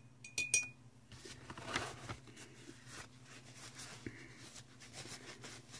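Faint handling sounds of craft supplies on a tabletop: a few light clicks just after the start, then soft rustling and small knocks, over a low steady hum.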